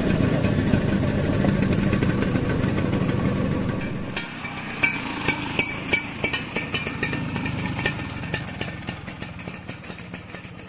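Vespa scooter engine running, loud for the first four seconds, then fading away. Sharp clicks and knocks follow.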